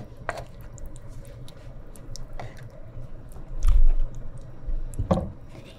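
A ladle scooping and pouring thick stew sauce over tomato slices in a stainless steel pot, with wet sloshing and small clicks of the ladle against the pot. A louder thump comes about two-thirds of the way through.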